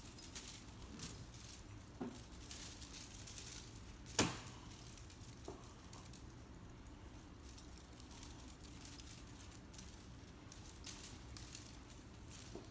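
A cat playing: faint rustling and light scuffs, with one sharp knock about four seconds in.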